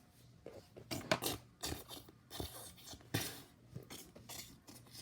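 A run of sharp clatters and knocks of small hard objects, bunched about a second in and again about three seconds in, like toy pieces being knocked about and falling.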